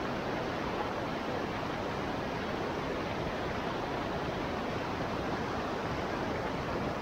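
Shallow rocky river rushing over boulders and small rapids: a steady, even rush of water.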